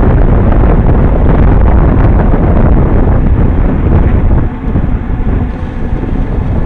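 Heavy wind buffeting on the microphone of a camera mounted on a moving road bicycle, mixed with road and tyre rumble. It eases somewhat about four and a half seconds in.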